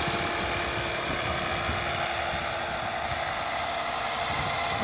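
Radio-controlled scale model UH-1 Huey helicopter flying low and steadily, the steady running noise of its rotors and motor.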